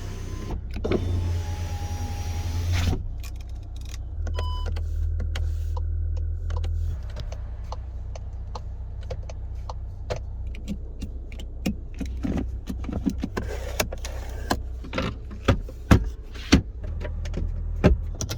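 Operating sounds of a 2022 Skoda Karoq facelift. A power window motor runs for about three seconds, and a short electronic beep follows about four and a half seconds in. After that comes a long run of irregular clicks and knocks from the car's controls and fittings, the loudest near the end, over a low steady hum.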